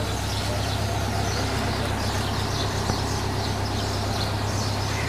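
Truck engine idling with a steady low hum.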